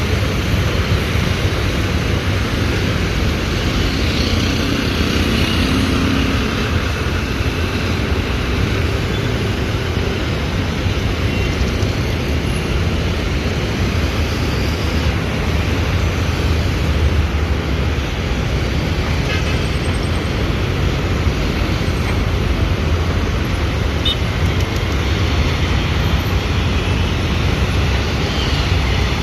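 Airbus A330-300 jet engines running at low taxi power: a loud, steady low rumble under an even roar, with no rise in pitch.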